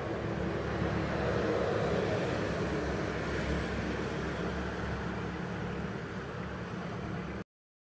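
Steady low rumble with a hiss over it, cutting off abruptly about seven seconds in.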